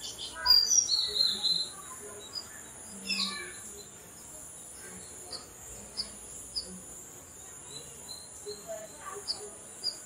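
Birds chirping in short, scattered calls, loudest in a quick run about half a second to a second and a half in, over a steady high-pitched hiss.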